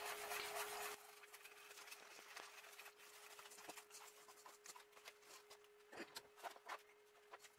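Wire whisk stirring thick batter in a stainless steel bowl: faint scraping with light clicks, a little louder in the first second, over a faint steady hum.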